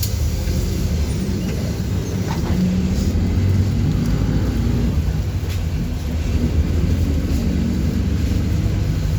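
City bus under way, heard from on board: a steady low engine drone and road rumble, the engine tones shifting a little in pitch as it drives.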